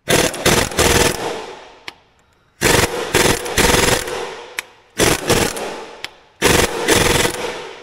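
Snap-on pneumatic impact wrench hammering on a stuck track roller bolt of a crawler dozer, in four bursts of about a second each with short pauses between them. The bolt is not coming loose.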